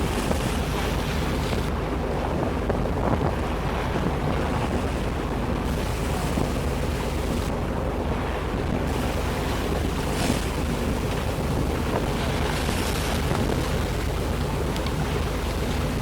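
A tour boat's engine running with a steady low hum while under way, with water splashing along the hull and wind buffeting the microphone.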